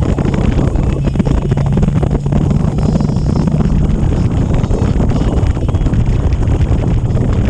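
Wind buffeting the microphone on a moving motorcycle, with the bike's engine running at a steady low hum underneath.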